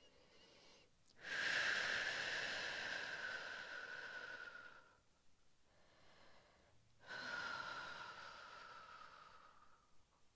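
A woman breathes out audibly and at length, twice: a long breath starting about a second in and a shorter one starting about seven seconds in. Each begins strongly and fades away. These are the slow exhales that go with drawing the knee in during a gentle floor exercise.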